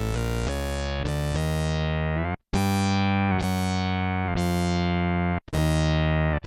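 Electric bass played through an MXR Bass Synth pedal, giving synth-bass notes that each open bright and close down with a filter sweep. Several quick notes come first, then slower single notes about a second apart, with a brief break between phrases twice.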